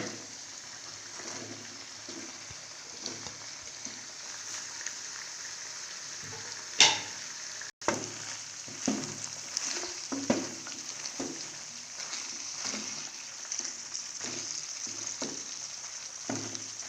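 Chicken keema with peas sizzling as it fries in a kadai, with a spatula stirring and knocking against the pan, the knocks coming about twice a second in the second half. One sharp clack a little before halfway.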